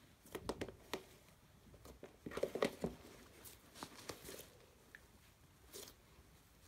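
Slime being squeezed and stretched by hand, giving scattered small sticky clicks and crackles in a few short clusters.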